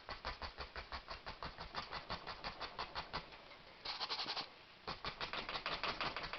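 Stiff paintbrush bristles tapped rapidly against a stretched canvas, stippling in leaves with dark acrylic paint: an even patter of about seven light taps a second, pausing briefly about four and a half seconds in.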